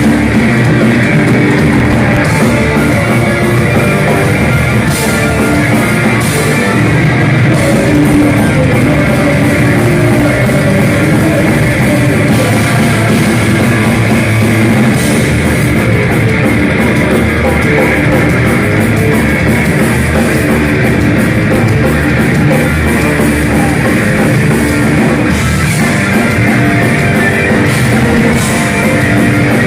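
A live heavy metal band playing loud and without a break: distorted electric guitars over a drum kit.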